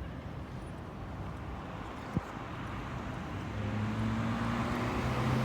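A motor vehicle approaching, its engine and road noise growing steadily louder, with a single short click about two seconds in.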